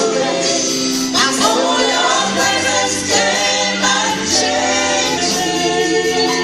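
Church choir singing a gospel song over instrumental accompaniment, with long held notes.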